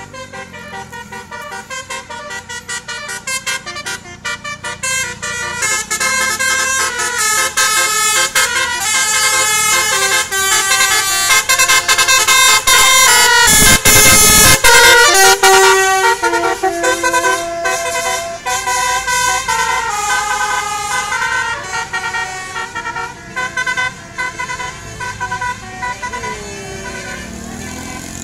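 Bus 'telolet' multi-tone horn playing a quick stepped melody over and over, growing louder to a peak about halfway through, where a loud rush of noise from the passing bus joins it, then fading away.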